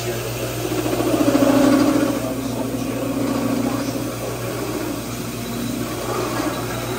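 Drill press running as its bit cuts into a bowling ball: a steady motor hum with a louder cutting drone that swells about a second in and eases after about two seconds.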